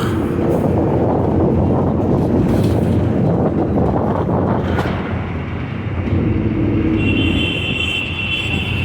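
Steady rumble of road vehicles, with wind on the microphone. A high steady tone joins near the end.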